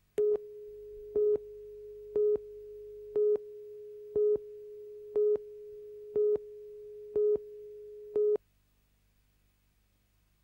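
Broadcast tape countdown leader tone: a steady single tone with a louder beep once a second, nine beeps in all, cutting off about eight seconds in.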